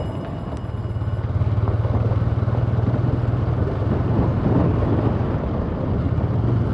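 Motorcycle engine running steadily while riding along at low speed, with road and wind noise.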